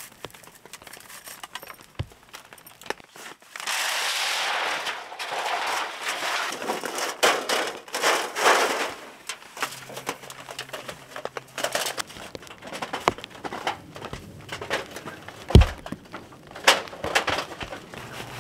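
Camping gear being handled: a rustling for several seconds, then a scatter of sharp clicks and knocks as a metal stove pipe is fitted, the two loudest knocks near the end.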